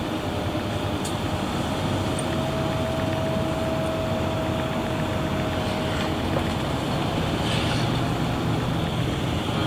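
Steady running noise of a road vehicle from inside its cabin: engine and road noise, with a faint steady whine for a few seconds in the middle.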